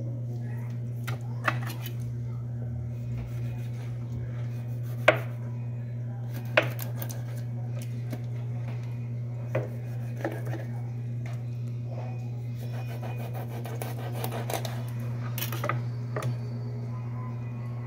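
Kitchen knife knocking and scraping on a plastic cutting board while scoring and handling a whole mojarra: scattered sharp knocks, the loudest about five seconds in, and a run of scraping and rustling about three-quarters of the way through. A steady low hum underlies it all.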